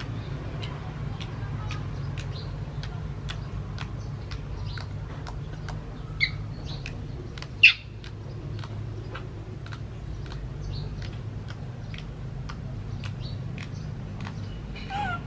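A baby macaque gives two short high squeaks about six and eight seconds in, the second the louder, and a brief falling call near the end. Under them runs an even ticking about twice a second over a low hum.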